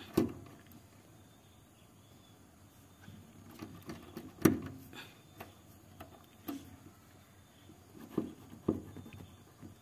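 Scattered clicks and knocks of pliers and metal hose clamps being handled on the fuel lines at the fuel pump's top plate. The loudest knock comes about halfway through, and a few lighter ones follow near the end.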